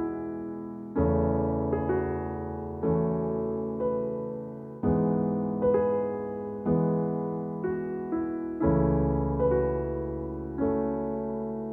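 Background music: a piano playing slow chords, a new chord struck about once a second and left to fade.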